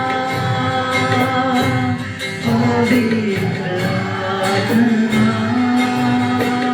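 Live worship band music: a singer holding long notes over the band, with a steady beat.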